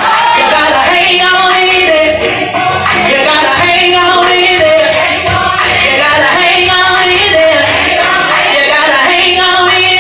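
A woman singing a gospel song into a handheld microphone, with several long held notes.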